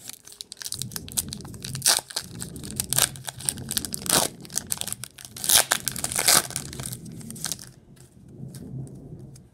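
A foil trading-card pack being torn open and crinkled by hand, with several louder crackles of the wrapper amid steady rustling that thins out near the end.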